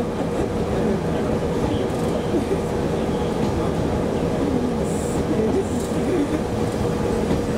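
Cabin noise of a JNR KiHa 37 diesel railcar running along the line: a steady rumble of wheels on the rails with the diesel engine, and a steady hum through it.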